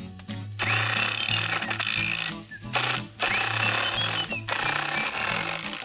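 Cordless driver running in bursts as it drives screws into a wooden fence rail, played back at four times speed so each burst starts with a quick rising whine; it starts about half a second in and pauses briefly three times. Background music plays underneath.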